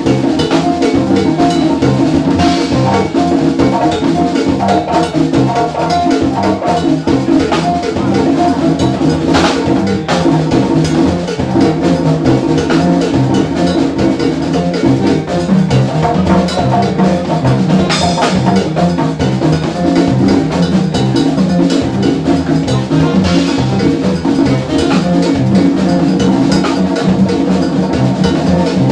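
Live jazz combo playing, with an electric bass line and a drum kit with cymbals running under dense pitched instrumental parts.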